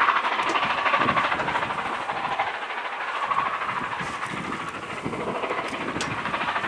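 Train wheels rolling on the rails out of view, a steady rushing rolling noise that fades slightly over the first few seconds. Wind gusts rumble on the microphone.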